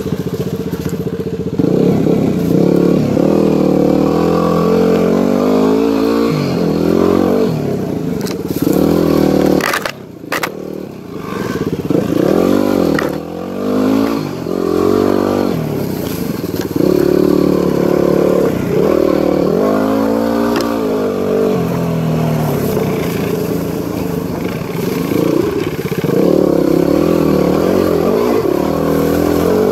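Yamaha WR250R's single-cylinder engine revving up and down over and over as the throttle is opened and closed, with a brief drop in engine sound about ten seconds in.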